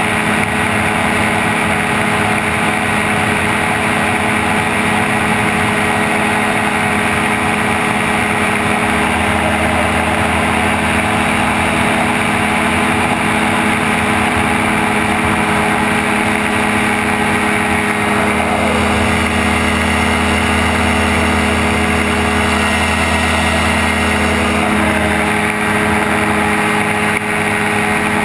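Gyrocopter engine and propeller running steadily in flight, heard from the open cockpit through a helmet-mounted camera with heavy wind rush. The engine note shifts slightly about two-thirds of the way through and again near the end.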